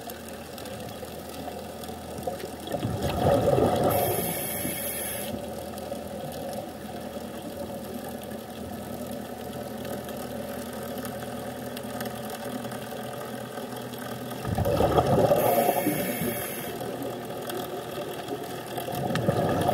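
A scuba diver breathing through a regulator, heard underwater. Two loud bursts of exhaled bubbles come about eleven seconds apart, each ending in a brief high hiss, and a third burst starts near the end.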